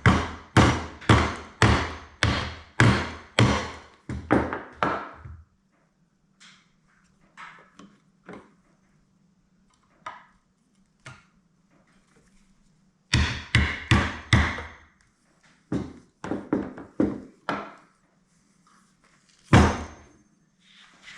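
Sharp knocks on parts of a corroded garbage disposal during teardown: a run of about two blows a second for the first five seconds, then quiet handling, another run a little past the middle, and one loud single knock near the end.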